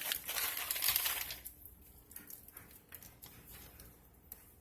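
Crinkling and rustling of a bag of almonds as more nuts are scattered onto the granola, dying away after about a second and a half, followed by a few faint ticks.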